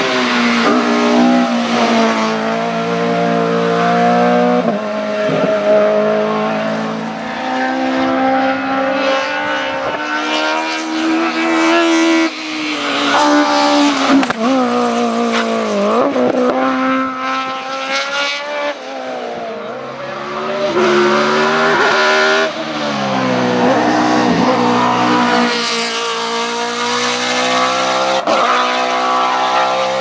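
Hillclimb race cars driven hard one after another, engines revving high and falling back in pitch again and again at each gear change as they pass.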